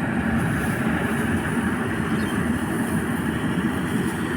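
Paddy harvesting machine running steadily, its engine giving a constant low hum under a dense mechanical noise.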